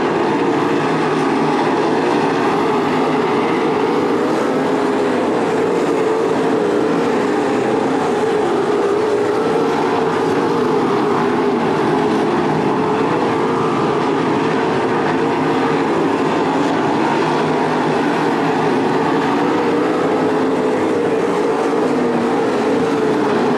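A field of 305 sprint cars' small-block V8 engines racing around a dirt oval, their exhausts blending into one steady, unbroken drone.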